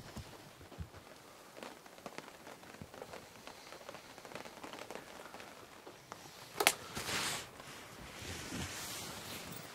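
Light rain pattering on tent canvas, with scattered small ticks. About two-thirds through, a single sharp knock, then a brief rustle and a hiss.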